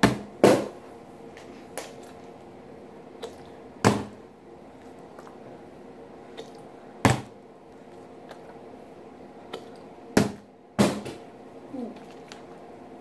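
Plastic water bottle being flipped and landing on a table: a string of sharp knocks, about six, a few seconds apart, with two close together near the end.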